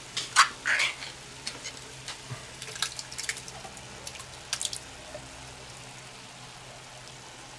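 Ring-pull can of chopped tomatoes torn open with a sharp click and rasp in the first second. Then the tomatoes are tipped out of the can into a cast-iron Dutch oven, where meat and onions sizzle quietly with scattered small crackles.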